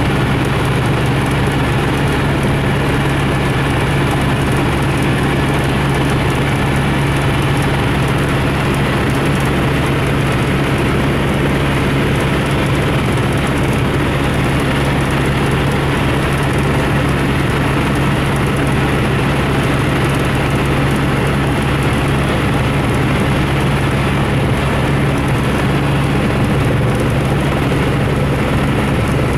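Aircraft engine and propeller running steadily, heard from a camera on board in flight: an unbroken low hum that does not change in pitch.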